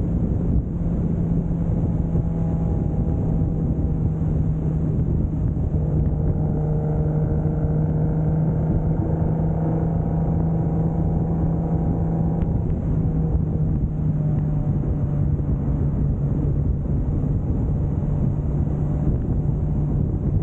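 1995 Toyota Soarer's 2JZ single-turbo straight-six cruising at a steady engine speed, its note holding level throughout.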